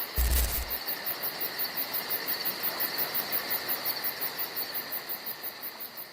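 A steady outdoor chorus of chirping insects with a fast, even pulse, and a brief low thump about a quarter second in.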